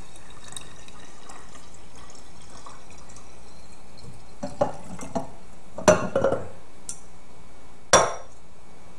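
Thick juice poured from a glass bowl into a glass mason jar, followed by several sharp glass clinks and knocks as the glass vessels are handled and set down, the loudest a little past halfway and near the end.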